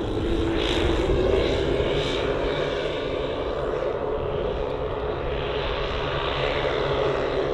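The twelve 10 cc OS engines of a 1:10 scale RC Dornier Do X flying boat running together in flight: a steady multi-engine drone.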